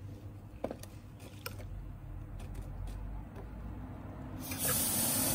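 A few light plastic clicks as the oil dipstick is drawn out of its tube on a Saab 9-5 V6 turbo engine. About four and a half seconds in, a steady hiss starts abruptly as the engine flush through the dipstick tube gets under way.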